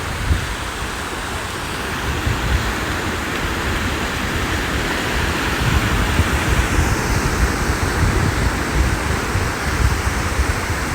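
Ocean surf on a beach: a steady rush of breaking and washing waves that builds gradually. Irregular low rumbling wind buffets the microphone.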